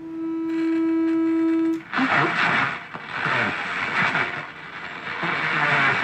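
Marc NR-82 F1 transistor radio's speaker sounding a steady test tone of about 330 Hz, with overtones, from a signal generator fed to the aerial. After about two seconds the tone cuts off and gives way to loud hiss and a garbled, distorted station as the bands are switched. The owner traces the distortion to FM broadcast signals breaking through on shortwave.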